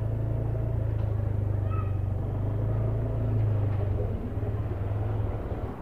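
A vehicle engine idling with a low, steady hum that dies away near the end.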